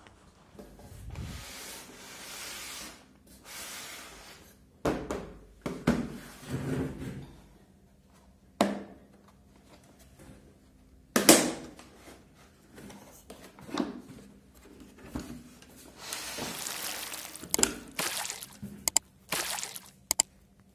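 Hands handling a Bosch hard plastic tool case: scattered knocks and rustling, with sharp clicks about eight and eleven seconds in, as the case is moved on the table and its latches are snapped open.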